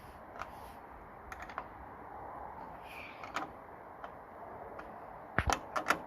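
Spanner clicking and clinking against the door handle's retaining nut and the van door's metal as the handle is screwed on: scattered sharp metallic clicks, with a quick cluster of louder ones near the end.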